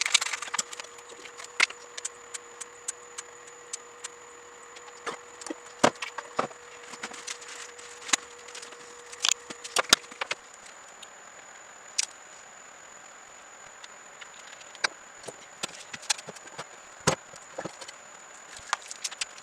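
Hand tools and parts being handled: irregular sharp clicks and knocks at uneven intervals, over a faint steady high-pitched whine.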